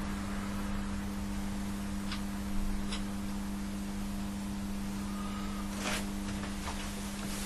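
Steady low electrical hum over hiss, with a few faint light clicks from hands handling a metal engine front plate and its gasket.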